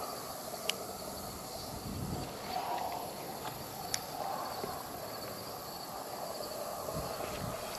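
Outdoor background noise: a steady low hiss, broken by two sharp clicks, one shortly after the start and one about four seconds in.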